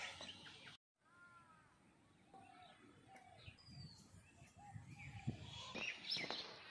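Faint scattered bird calls, short chirps and arching calls, over quiet rural outdoor background. The sound cuts out briefly just under a second in.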